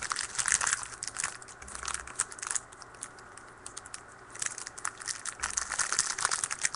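Crinkling and rustling of trading card pack wrappers and cards being handled: a run of irregular crackles that eases off for a second or two in the middle, then picks up again.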